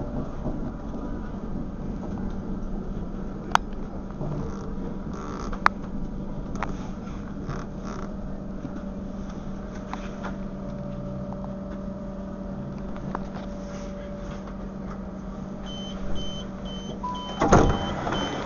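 Railway platform ambience with a steady low hum and a few sharp clicks. Near the end comes a train's door-closing warning, a rapid series of short high beeps, followed by a loud thump.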